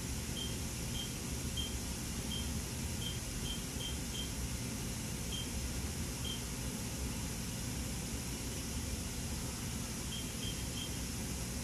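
Haas VF-3SS vertical machining center with its spindle turning at 1,000 RPM, giving a steady hum and hiss. Over it come short high beeps from the control's keypad as keys are pressed, about a dozen at irregular intervals, most in the first half and three in quick succession near the end.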